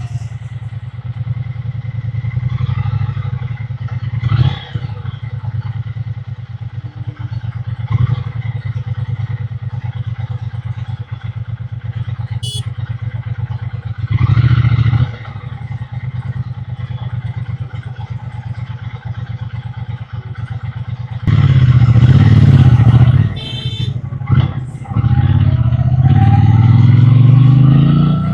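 Triumph Bonneville T120 parallel-twin engine and exhaust running at low, steady revs, with a few short throttle blips. About three-quarters of the way in it gets much louder under acceleration, and the revs climb near the end.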